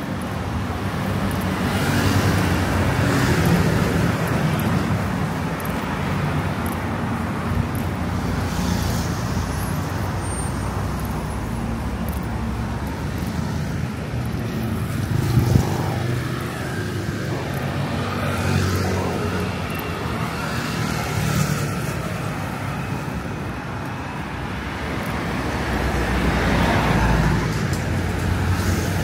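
City road traffic: engines running steadily, with vehicles passing close by every few seconds and a short, sharp sound about halfway through.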